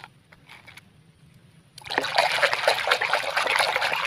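A hand sloshing and churning muddy water in a plastic basin, starting about two seconds in and going on busily. Before that come a few faint clicks of plastic toys being handled in a plastic basket.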